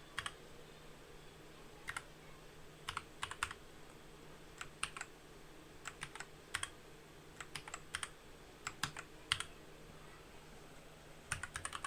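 Keys being pressed on a Dark Project KD87A optical-mechanical keyboard with tactile Gateron Brown switches. The presses come singly and in short clusters of a few quick clacks, at irregular gaps of about a second or two, not steady typing.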